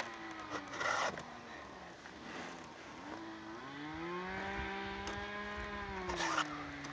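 A distant chainsaw revving up about three and a half seconds in, holding at high speed, then dropping back near the end. A few short scrapes of chain and file handling close by.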